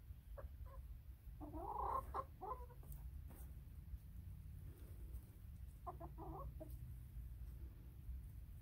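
Hens clucking in short runs of calls: a brief cluck, then a louder string of clucks about a second and a half in, and another short string around six seconds in, over a steady low rumble.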